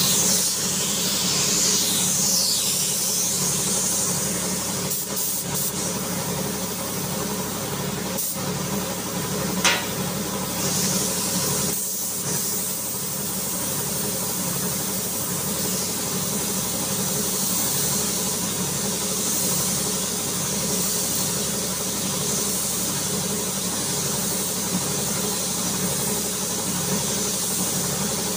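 Compressed-air paint spray gun hissing as primer is sprayed onto a car door, the hiss swelling and easing as the trigger is worked, over a steady mechanical hum. One brief sharp sound about a third of the way in.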